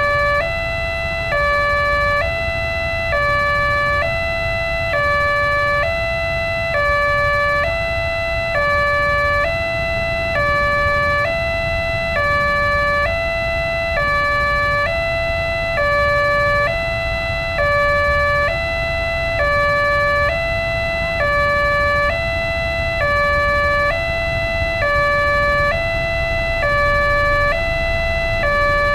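Electronic warning siren of an Indonesian railway level crossing, sounding continuously in a steady two-tone, high-low alternation. It signals that a train is approaching and the crossing gates are closed. A low rumble runs underneath.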